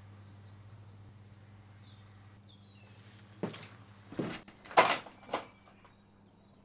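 Four heavy footsteps on a hard floor, about half a second apart, the third the loudest, over a low steady hum with faint bird chirps in the first half.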